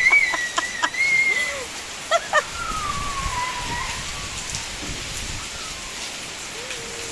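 Steady rain falling and pattering on surfaces. A high, drawn-out voice-like call with a few sharp taps stands out in the first second and a half, and fainter falling calls follow later.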